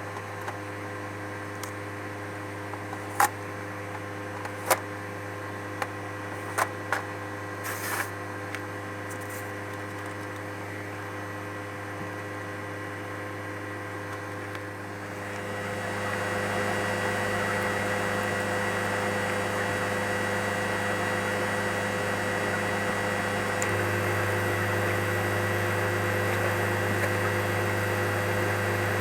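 Air-conditioning condensing unit running, its compressor and condenser fan giving a steady hum with fixed tones. A few light clicks come in the first several seconds. About halfway through the sound grows louder and fuller, and the low hum steps up again near the end.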